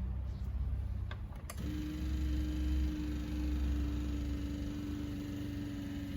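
Electric seat adjustment motor of a BMW E39 running with a steady hum, starting just after two sharp clicks about a second and a half in.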